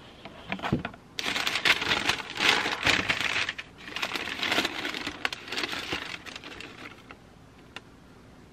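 Shoebox tissue paper crinkling and rustling as it is folded back, a dense crackly rustle that starts about a second in and dies away about seven seconds in. A few light knocks from the cardboard box come before it, and a faint click comes near the end.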